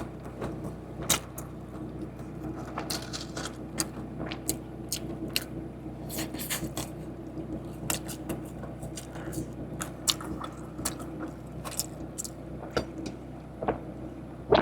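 Close-up chewing and biting of a KFC creamy spinach zinger, a fried chicken burger: many short, irregular wet mouth clicks and crunches over a steady low hum.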